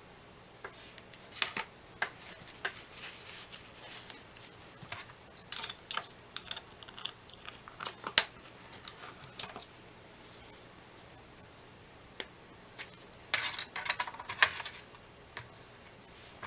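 Close-up handling noises: irregular clicks, taps and short scratchy rustles, bunched in bursts with a quieter gap about two-thirds of the way through and a last dense cluster near the end.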